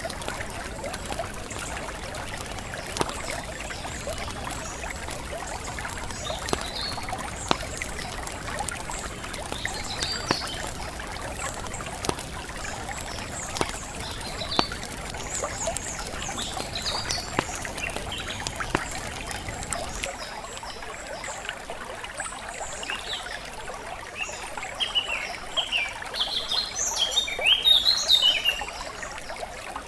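Running water trickling steadily with small birds chirping over it; the birdsong grows busier and louder near the end.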